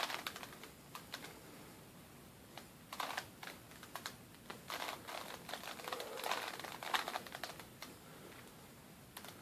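Plastic Rubik's Cube being twisted by hand, its layers clicking and clacking in quick, irregular bursts.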